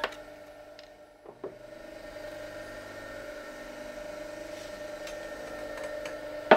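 Electric potter's wheel motor humming steadily. A couple of faint knocks come about a second and a half in, and a sharp knock right at the end.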